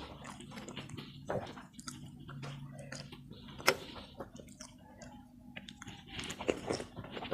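Close-miked chewing and wet mouth sounds of someone eating ketupat rice cake with opor ayam, with irregular small smacks and clicks and one sharper click about halfway through.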